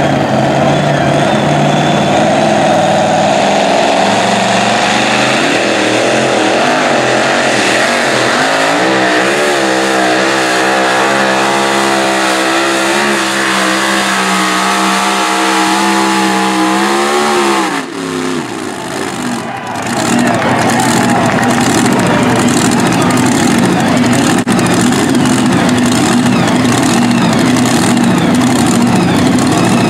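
Supercharged V8 engine of a super modified 2WD pulling truck running at full throttle through a pull, its pitch wavering up and down during the second half of the run. About 18 seconds in the throttle is cut and the engine drops away, then settles to a rough idle.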